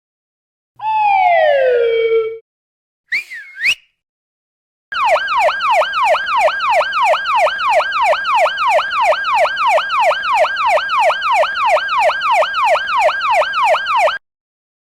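Stock sound effects from a stop-motion app's library, played one after another. First a pitch that falls, like a slide whistle going down, then a short whoop, then a fast siren yelp that sweeps down and snaps back up about three times a second for about nine seconds before cutting off.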